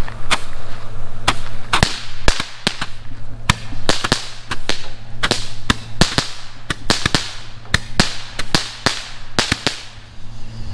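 Several Roman candles firing together: an irregular string of sharp pops and cracks, about two a second, with a hiss between shots.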